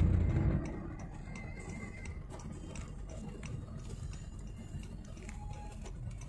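Low road and engine rumble inside a moving car's cabin, with faint ticking at a fairly even pace. A louder sound at the very start drops away within the first second.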